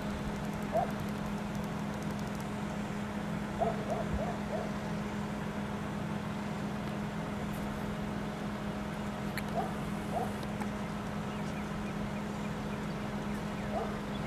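A bird cooing in soft hoots, singly or in a short run of four notes about four seconds in, over a steady low hum.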